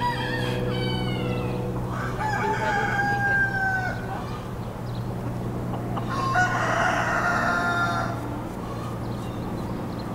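Rooster crowing three times in long drawn-out calls, near the start, about two seconds in and about six seconds in, over a steady low hum.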